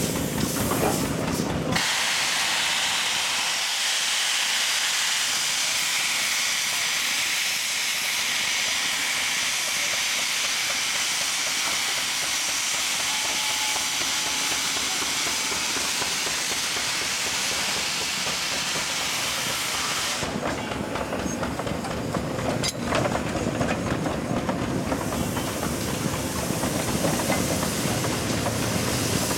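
Antique steam traction engines: a long, steady hiss of escaping steam lasting about eighteen seconds. Then the hiss stops and gives way to a lower mechanical running sound with a rapid rhythmic clatter and one sharp click.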